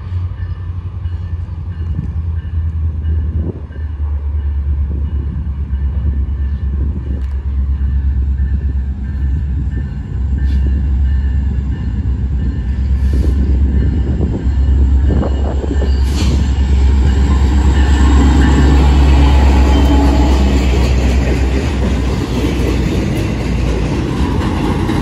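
Diesel freight train approaching and passing close by: a low locomotive rumble that grows steadily louder, then the noise of loaded flatcars rolling past on the rails, loudest in the second half.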